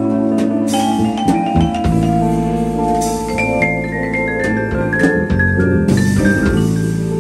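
Vibraphone solo in a live jazz band, played with yarn mallets: quick runs of struck, ringing metal bars over a sustained electric bass line and piano.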